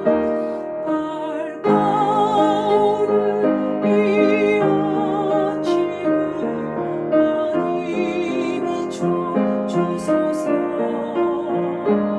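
A woman singing the alto part of a hymn with vibrato, over piano accompaniment.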